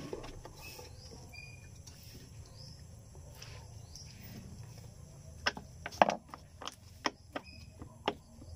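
Scissors snipping through a paper sticker sheet: a quick run of short, sharp snips starting a little past halfway. Faint bird chirps in the first half.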